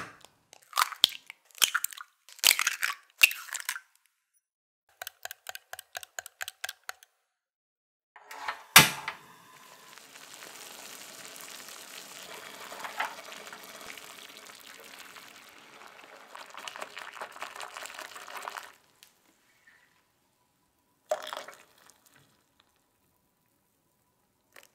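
Eggs knocked and cracked into a bowl, then beaten with a quick, even run of light taps. After a loud knock, water at a rolling boil bubbles steadily in a glass pot for about nine seconds and stops.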